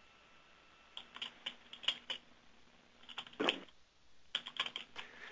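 Typing on a computer keyboard: quick clusters of key clicks starting about a second in, with a short pause near the middle before more keystrokes.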